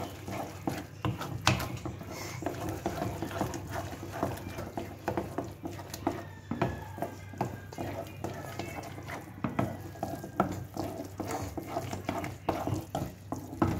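Metal spoon scraping and clicking irregularly against a metal pan as a thick egg-and-milk halwa is stirred continuously while it roasts in ghee.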